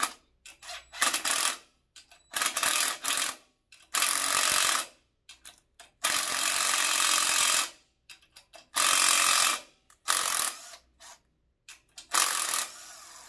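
Handheld cordless drill/driver running in about seven short bursts, starting and stopping as it turns bolts at the front of an iron engine block, with small clicks between the bursts.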